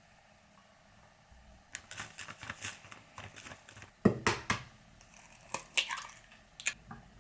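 Irregular crinkling and clicking handling noises, with one louder knock about four seconds in.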